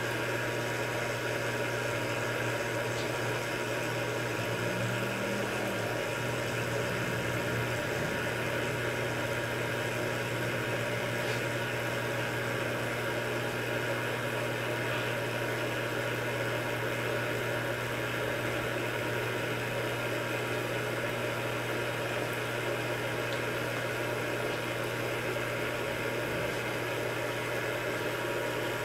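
Steady low hum that holds one unchanging pitch throughout, a little stronger for a few seconds near the start.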